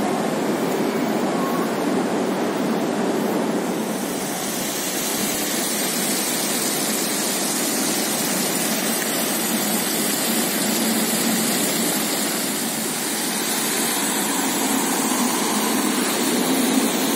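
Steady city-street ambience of light traffic and splashing fountain water. About four seconds in, a duller indoor hum gives way to this brighter, hissier outdoor wash.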